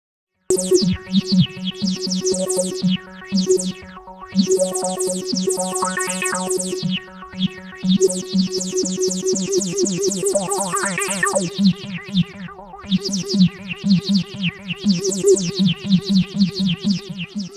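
Synthesizer music that starts about half a second in: a held low note pulsing rapidly under quick, repeating high figures.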